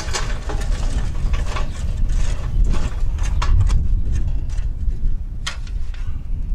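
Lit charcoal briquettes poured from a metal chimney starter, clattering and tumbling into a metal charcoal basket in a run of irregular clinks. Wind rumbles on the microphone underneath.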